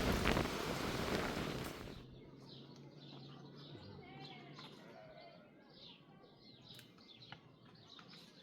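Heavy rain and wind noise that cuts off abruptly about two seconds in, followed by many small birds chirping with short, quick, falling calls.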